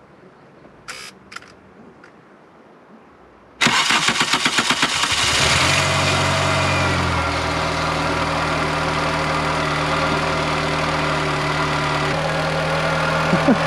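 A Volkswagen Golf's engine, wet from a pressure wash of the unprotected engine bay, is cranked by the starter for about a second and a half after a couple of faint clicks. It catches, runs briefly higher, then settles into a steady idle: it still starts after the wash.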